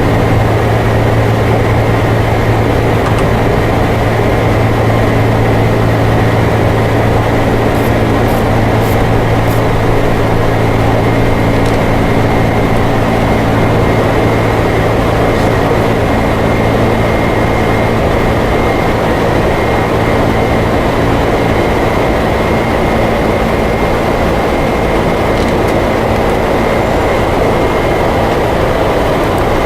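Steady flight-deck noise in a Boeing 747-400 cockpit: a constant rush of air and engine noise with a low, even hum.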